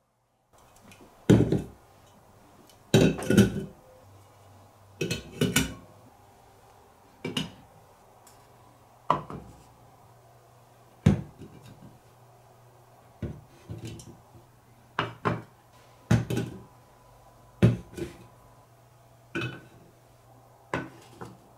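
Aluminium drink cans and wooden boards and blocks being set down on a table and on each other: a series of sharp clacks and knocks every second or two, some in quick pairs.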